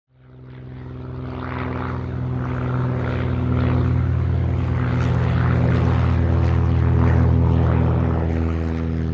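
Single-engine propeller airplane droning steadily in flight, fading in over the first couple of seconds.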